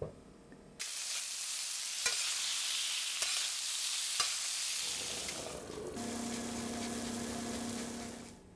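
Pork chops sizzling in hot oil in a frying pan, starting suddenly about a second in, with a few sharp taps. In the last couple of seconds a steady low hum joins the sizzle before both cut off near the end.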